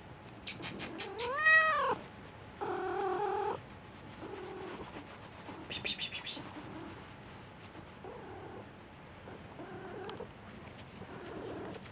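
Domestic cat vocalizing: a quick run of chirping clicks, then a loud meow that rises and falls in pitch about a second and a half in, followed by a held, steady call. Another short burst of rapid chirps comes near the middle, then several softer short calls.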